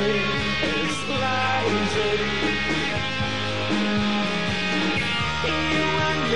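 Britpop band playing live rock at full volume: electric guitar and bass guitar, with a male voice singing over them.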